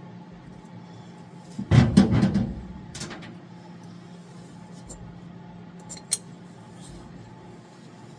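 Metal parts and tools handled and knocked together: a loud cluster of clanks about two seconds in, a shorter rattle a second later, and two sharp clicks near six seconds, over a steady low hum.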